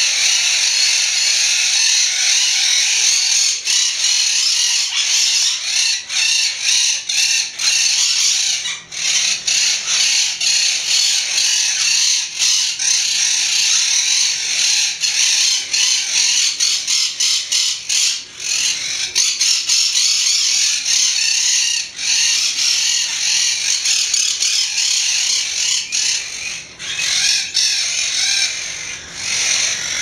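A flock of monk parakeets (quaker parrots) calling over one another without a break, a dense, shrill chatter of overlapping squawks.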